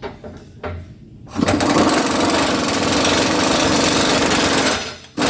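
Impact wrench running the retaining nut onto a hydraulic cylinder's piston rod: a few light knocks, then a steady rapid hammering for about three seconds, and one short burst near the end.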